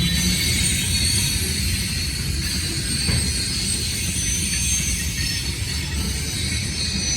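Freight train rolling past: a steady rumble of wheels on rail, with thin high-pitched wheel squeal over it.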